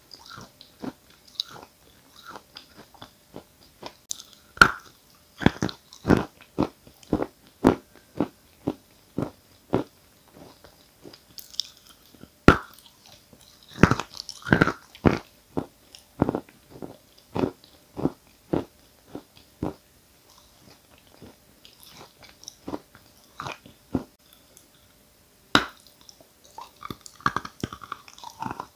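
Close-miked eating of a chunk of Giant (Исполин) chalk: a few sharp crunches as bites snap off the hard piece, then runs of wet chewing strokes about twice a second as the soft, sandy chalk breaks down into mush.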